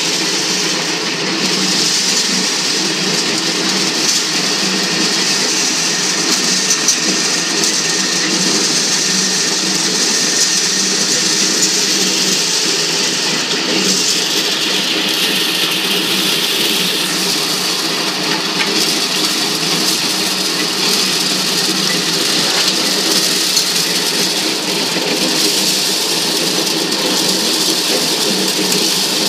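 Motor-driven maize sheller running steadily under load as husked corn cobs are fed in and stripped of their kernels, a continuous dense mechanical noise.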